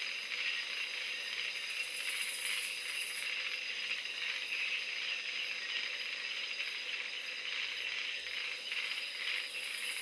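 Night-time rainforest insect chorus: a steady high-pitched buzzing and trilling of many insects. A higher shimmer swells briefly about two seconds in and again near the end.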